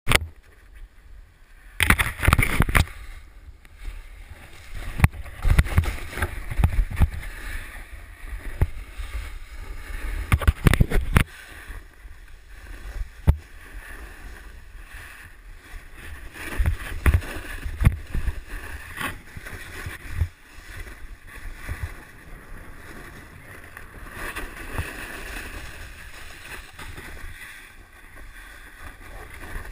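Snowboard sliding and scraping over snow through a run of turns, a steady hiss with louder scrapes. Wind buffets the body-mounted camera's microphone in heavy low rumbling gusts, loudest in the first dozen seconds.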